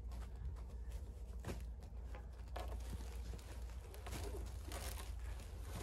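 Faint rustling and scraping of a black shade cloth being folded over on itself on snowy ground, in a few scattered short bursts over a steady low rumble.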